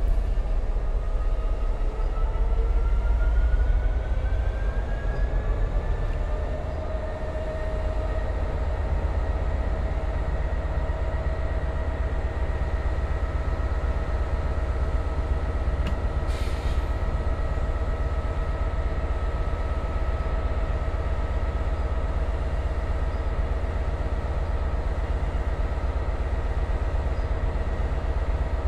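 Class 66 diesel-electric locomotive's two-stroke V12 engine running with a deep, steady rumble. Its whining tones climb in pitch over the first several seconds as the engine speeds up, then hold level.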